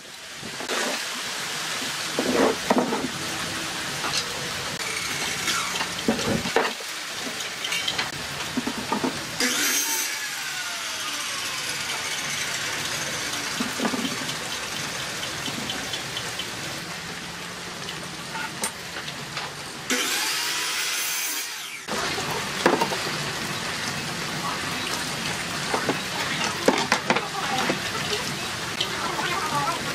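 Woodworking sounds at a bench: wooden slats and frames knocked and handled, and a cordless drill run briefly, over a steady hiss. The sound drops out twice, briefly.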